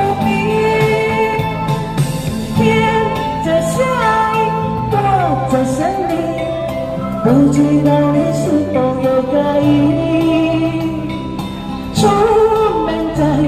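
A woman singing a Chinese-language pop ballad into a microphone over musical accompaniment, holding long notes and sliding between pitches, with a louder phrase coming in near the end.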